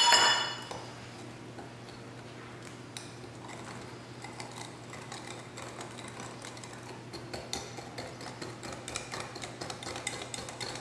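A stainless steel measuring cup set down on a granite counter with a sharp, ringing clank. Then a wire whisk beats a thin batter in a glass bowl: a quick run of light ticks against the glass that grows louder toward the end.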